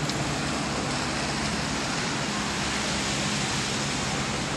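Steady rush of floodwater over a road, with a vehicle engine's low, even hum underneath as it drives through the water.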